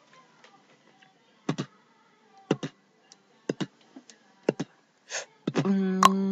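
Beatboxing: sharp mouth-made kick and click sounds about once a second, often in quick pairs. Near the end a steady low droning note comes in under the beat.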